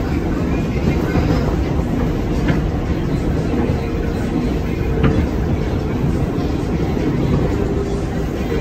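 New York City subway car running along the track, heard from inside the car: a loud, steady rumble of wheels on rail with two sharp clicks a couple of seconds apart. A faint thin whine comes and goes.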